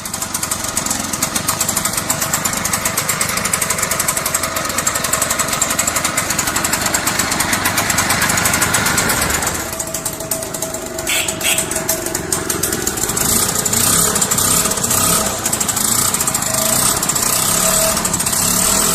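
Small motor scooter engine running with a rapid, buzzy pulse. About halfway through the sound changes character and a steady hum joins it.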